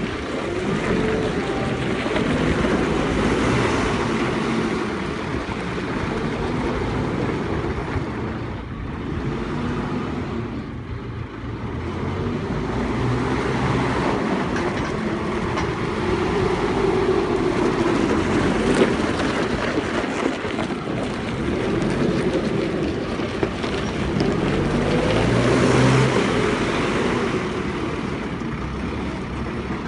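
JCB 541-70 telehandler's diesel engine running as the machine drives and manoeuvres, its revs rising and falling again and again.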